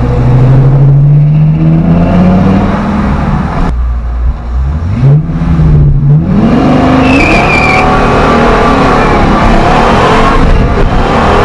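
Ford Triton 6.8L V10 in a 1970 F100 accelerating hard through its 2.5-inch X-pipe exhaust. The engine note rises, breaks off for a gear change about four seconds in, pulls up again, then settles to a steady run. A short high squeal of the tires comes about seven seconds in.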